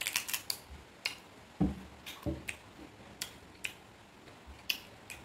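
Close-miked crisp clicks and snaps of a green mango's skin being torn off by hand, most dense right at the start, with two soft low thuds about one and a half and two seconds in.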